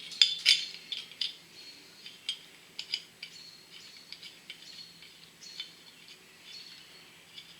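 Metal parts of a valve spring compressor tool clicking and clinking as it is put together by hand. The sharpest clicks come in the first second, followed by scattered lighter clicks.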